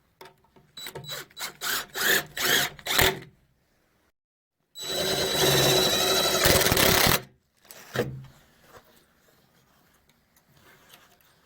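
A run of about eight quick knocks, then a power drill running steadily for about two and a half seconds as it bores into a juniper board, followed by a single knock. The drilling is typical of making holes for kiln moisture probes.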